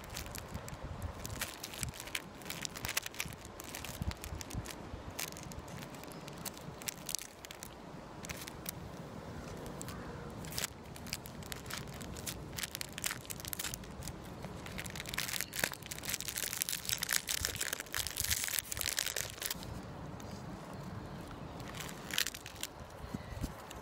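Thin plastic film wrapper of a triangular onigiri crinkling and crackling as it is pulled apart and peeled off by hand, with a dense stretch of crinkling about two-thirds of the way through.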